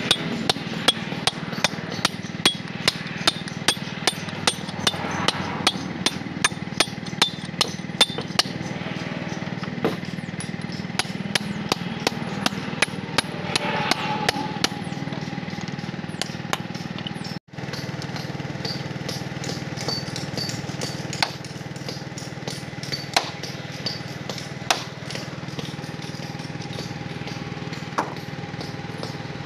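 Hammer striking a steel chisel held against a stone block to cut a groove for splitting it: sharp metallic blows at a fast, even rate, about two to three a second, for roughly the first half. After a brief dropout the blows come only now and then, over a steady low hum.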